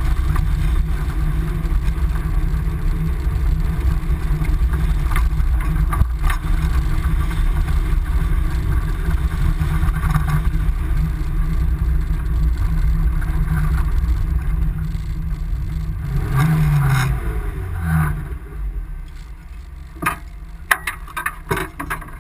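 Engine of a tube-frame drift buggy running steadily, heard from an onboard mount, with a short rev about three-quarters of the way through. The engine sound then drops away, and a few sharp knocks and clatters come near the end.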